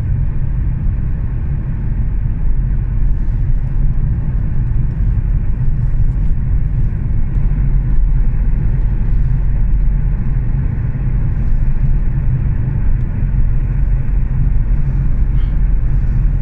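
A car driving along a road, heard from inside the cabin: a steady low rumble of engine and tyres.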